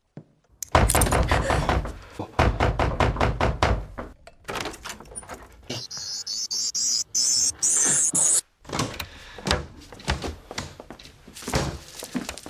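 Designed sound effect: a rapid train of knocks and thuds over a low rumble, then a high, pulsing creak that rises in pitch and cuts off suddenly, followed by a few scattered knocks.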